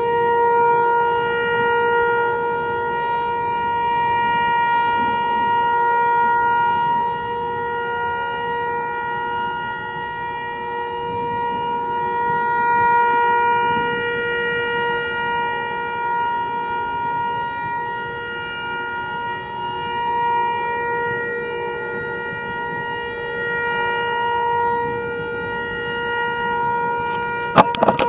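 Outdoor tornado warning siren sounding one steady tone, its loudness swelling and fading every six or seven seconds, with wind noise underneath. A few sharp clicks come near the end.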